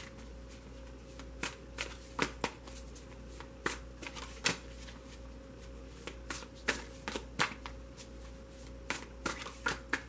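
Tarot deck being shuffled by hand: irregular soft slaps and flicks of the cards, coming in little clusters.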